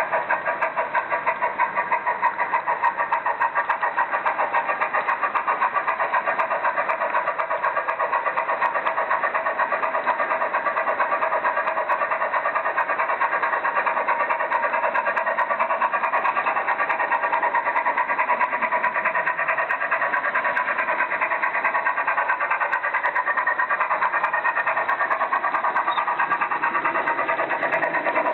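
Märklin model of a Union Pacific Big Boy steam locomotive running on the track, with a fast, steady, rhythmic chuffing pulse throughout.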